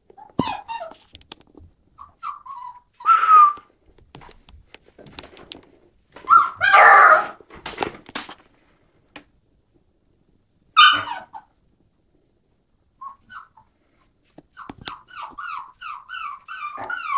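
A puppy barking and whining: a few separate short barks or yelps, then near the end a quick run of short whimpers, about three a second.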